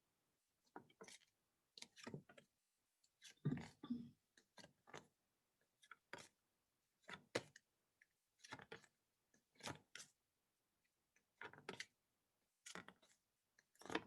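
Faint taps and soft clicks of paper flashcards being flipped one after another through a pack, about one or two a second and irregular.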